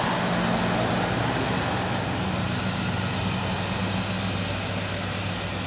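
A vehicle engine idling: a steady low hum under a constant hiss.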